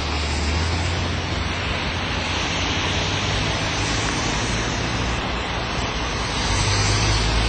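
A vehicle engine running steadily: a low hum under a constant broad hiss, a little louder for the last second or so.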